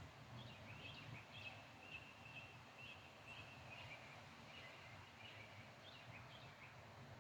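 Northern cardinal singing faintly, a run of short repeated song notes about two a second, over a low steady background rumble.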